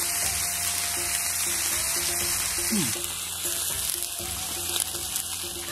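Food sizzling steadily on a hot teppanyaki iron plate, with background music.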